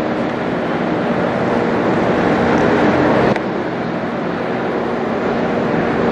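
Airbus A330-300 airliner passing overhead on approach, a steady loud jet engine roar with a faint hum in it.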